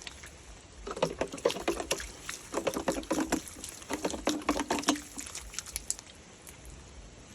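Water splashing and dribbling in three short bouts, each about a second long, dying away about two-thirds of the way in.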